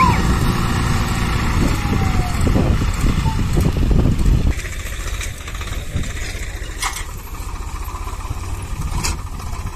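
Diesel tractor engines working hard under a heavy load of sugarcane on a trolley, revving, then dropping suddenly to a quieter, steady running about halfway through.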